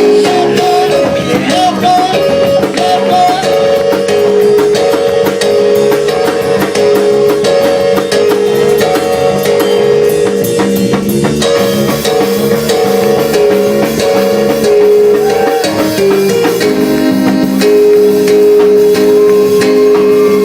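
Loud church praise music played by a band with drum kit and guitar, a busy steady beat under held, shifting notes.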